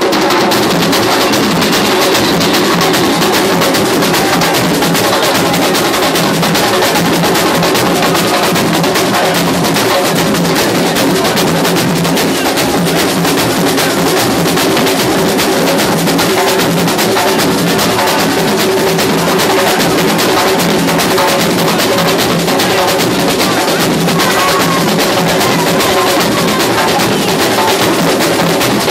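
Samba school bateria playing a dense, steady samba rhythm: many surdo bass drums, snare drums and repiniques struck together. Loud and unbroken throughout.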